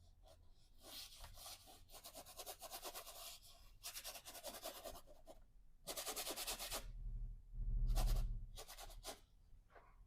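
Bristle brush scrubbing oil paint onto canvas in several bursts of rapid strokes, with a dull low thud about eight seconds in.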